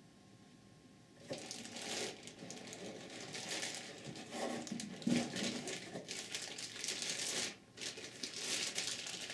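Clear plastic bag crinkling as hands pull it open and off a new transmission solenoid pack, starting about a second in.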